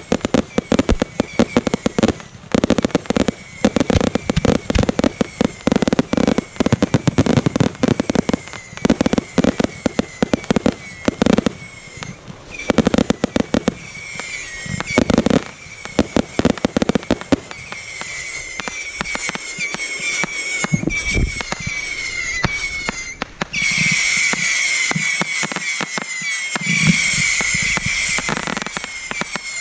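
Fireworks display firing: a rapid, dense string of bangs and crackles. In the second half a high hissing, whistling sound builds up and is loudest near the end.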